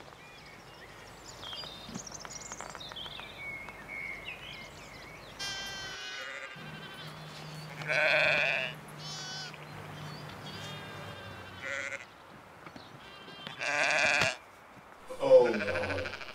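Sheep bleating over and over, a string of wavering calls about a second long, the loudest about a third of the way in and again near the end. Birds chirp in the first few seconds, and a low steady hum runs under the middle part.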